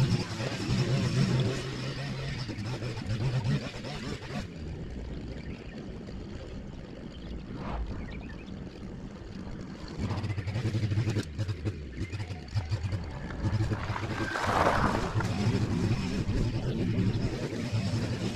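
Small petrol engine of lawn-care equipment running steadily; it eases off about four seconds in and picks up again about ten seconds in.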